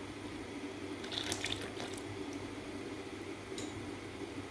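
A silicone spatula stirs milk and custard as it thickens in a nonstick wok, with a wet slosh. A few quick scraping strokes come about a second in, and a light click comes near the end. A steady low hum runs underneath.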